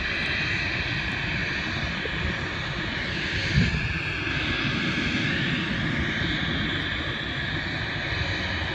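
Jet airliner engines running with a steady roar and a high whine; the whine bends in pitch around the middle. A short thump about three and a half seconds in.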